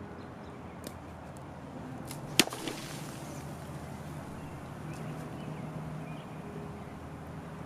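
A single sharp crack, like a hard strike, about two and a half seconds in, with a smaller knock just after, over a steady low background hum.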